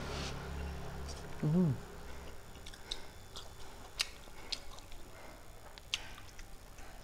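A person chewing fried fish, with small wet mouth clicks and smacks scattered through the second half. About a second and a half in there is a short hum of the voice that rises and falls, the loudest sound.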